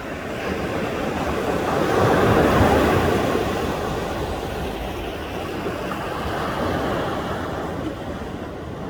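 Sea surf: a wave breaks and rushes up the beach, swelling to its loudest about two to three seconds in and then washing back and fading, with a smaller swell later.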